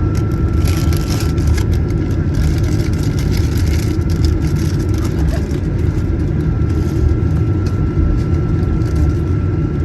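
Cabin noise aboard a Boeing 737-900ER with its CFM56-7B jet engines running: a loud, steady low rumble with a thin steady whine over it. A run of quick rattles and clicks fills the first half and grows sparser later.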